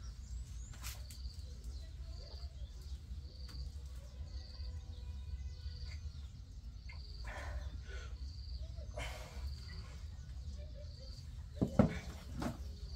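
Rural background: a small creature's short high chirp repeats about once a second over a steady low rumble. A single sudden loud knock sounds near the end.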